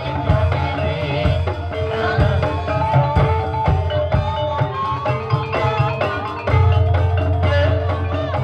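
Live ebeg dance accompaniment music: struck mallet percussion playing melodic notes over drums, with the low drum beat growing heavier about six seconds in.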